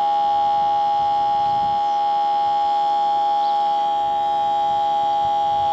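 Small smoke leak detector running, its pump giving a steady, unchanging whine as it pushes smoke out through its hose.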